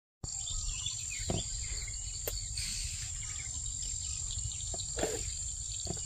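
Field ambience: a steady high-pitched insect drone runs over a low rumble, with a few brief faint bird chirps.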